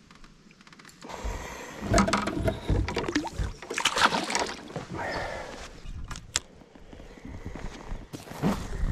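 Water splashing and sloshing with irregular knocks and handling noise, starting about a second in and coming in uneven spells.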